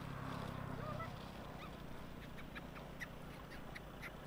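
Faint, short animal calls and chirps scattered through, some rising briefly in pitch, over a low steady hum that fades after about a second.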